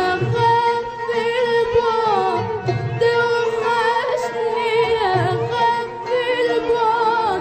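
Classical Arabic tarab song from a live orchestra: bowed strings carry a wavering, ornamented melody over a steady low beat, with a woman singing.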